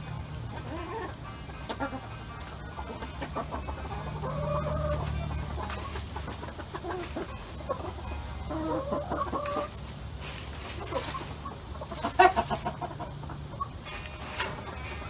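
Flock of domestic hens clucking in a low, continual chatter, with a louder short call about twelve seconds in.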